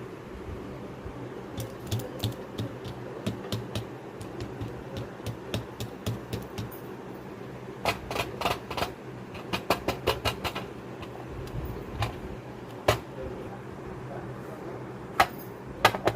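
Fidget toys on a fidget board being clicked and pressed: irregular sharp clicks, some single and some in quick runs, over a steady low hum.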